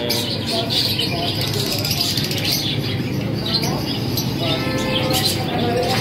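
A flock of caged budgerigars chattering and chirping together, a dense run of many overlapping short chirps, with people's voices mixed in.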